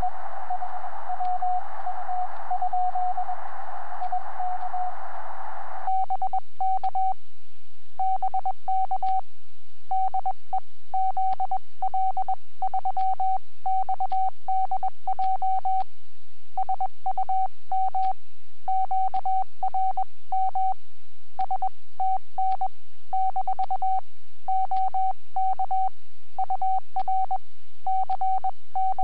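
Morse code (CW) on a ham transceiver on the 30-metre band. For about six seconds one steady tone sits in receiver hiss. Then the hiss cuts out and a clean single-pitch tone is keyed in dots and dashes, the rig's sidetone as the operator sends.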